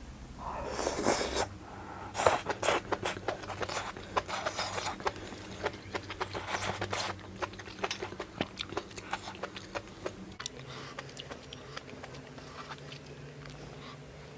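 Close-miked eating of hotpot food: wet chewing with many sharp mouth clicks, dense for the first several seconds and thinning out after about ten seconds.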